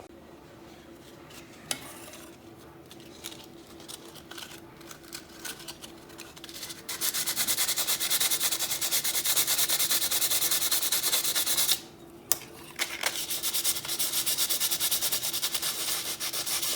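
Sandpaper rubbed in rapid back-and-forth strokes over cured epoxy on a carbon fiber drone plate, smoothing the filled hole. A few light handling clicks come first. The sanding starts about seven seconds in, stops briefly near twelve seconds, then carries on.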